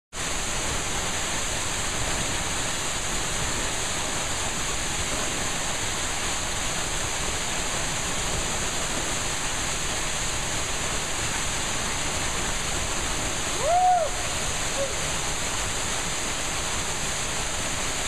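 Waterfall pouring into a pool, a steady rush of falling water. About fourteen seconds in, a swimmer gives a short shout that rises and falls over it.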